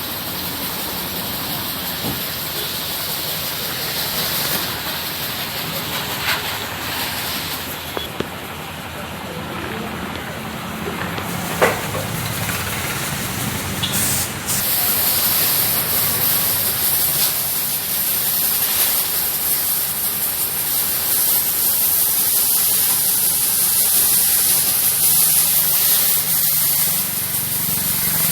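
Pressure washer spraying a high-pressure water jet in a steady hiss that gets louder about halfway through, with a few sharp knocks in the first half.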